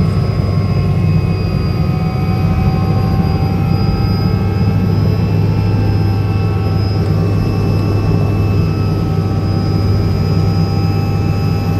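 Helicopter heard from inside its cabin, running steadily: a loud low drone with a few thin high whining tones over it, unchanging throughout.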